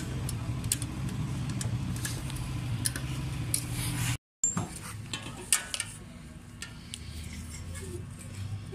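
Sharp metallic clicks and taps of pliers working the aluminium pins in a pedestal fan's metal blade hub. A steady low engine hum runs underneath in the first half and stops at a cut about four seconds in, leaving only sparse clicks.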